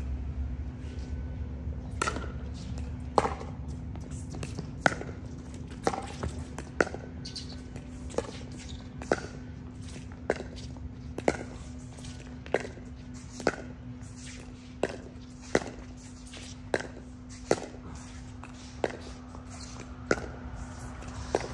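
A long pickleball rally: paddles hitting the plastic ball in sharp pops about once a second, some seventeen shots in a row, over a steady low hum.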